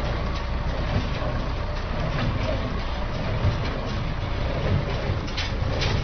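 Tractor-driven small square hay baler working straw: the tractor engine runs steadily under the baler's mechanical clatter, with a few sharp knocks, two of them close together near the end.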